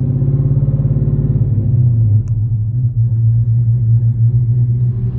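2019 Dodge Charger Hellcat's supercharged 6.2-litre Hemi V8, heard from inside the cabin, held at a steady fast idle around 2000 rpm as a throttle-response test after a fresh engine tune. Its pitch eases off a little about two seconds in.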